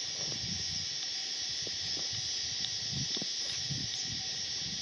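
Steady, shrill drone of cicadas in the summer bush, unbroken throughout, with soft irregular low rumbles underneath.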